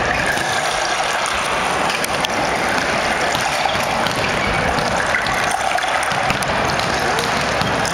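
Steady din of a sports hall during volleyball warm-up, with a few faint ball smacks standing out.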